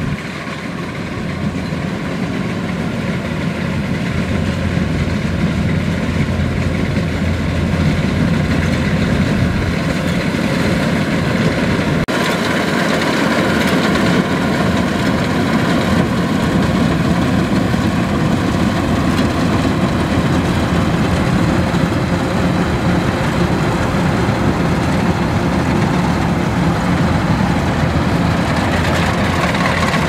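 Kubota DC105X rice combine harvester working in the crop: its diesel engine and threshing machinery run with a steady, heavy drone while the header cuts rice. It grows louder over the first few seconds, with a momentary drop about twelve seconds in.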